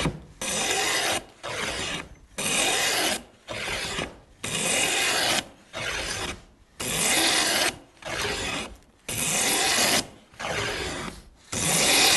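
A heavy wooden plane, set coarse, taking thick shavings off a timber edge in repeated cutting strokes. There are about eleven strokes, roughly one a second, each a scraping hiss of blade through wood, with a brief pause between strokes.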